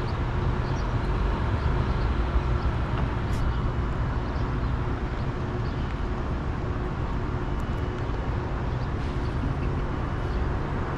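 Steady low rumble of a freight train approaching at speed in the distance, not yet passing.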